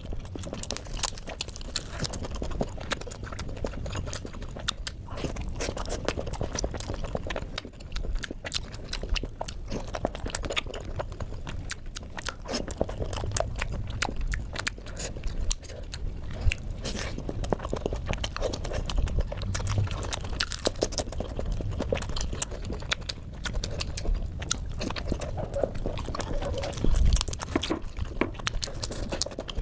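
Close-miked chewing of steamed momos (dumplings), with many quick wet mouth clicks and lip smacks and soft low thumps of biting.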